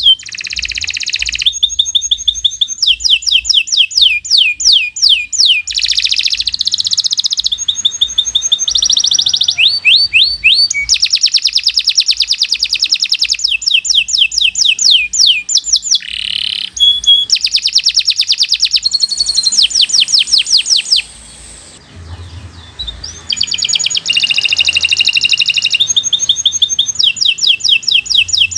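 Domestic canary singing a long, unbroken song of rapid trills, each phrase a fast run of repeated high chirping notes that changes to a new note every second or two, with a brief break about three quarters of the way through.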